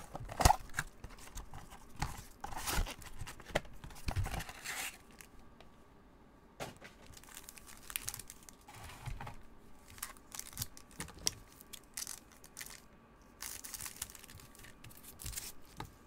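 2021 Bowman baseball Mega Box's cardboard being torn open and its plastic-foil card pack wrappers crinkling as the packs are handled. The tearing and rustling is strongest in the first five seconds, then it turns to lighter crinkles and small taps.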